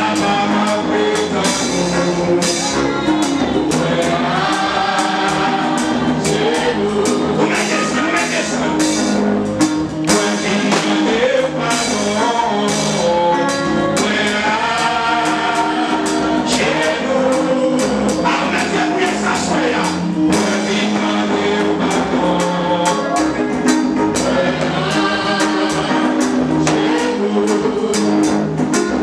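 A man singing a gospel worship song into a microphone, holding long notes, over live band accompaniment with hand drums keeping a steady beat.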